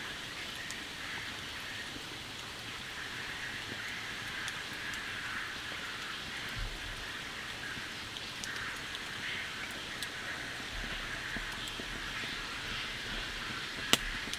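Steady rain falling, with scattered individual drops tapping, and one sharp, louder tap near the end.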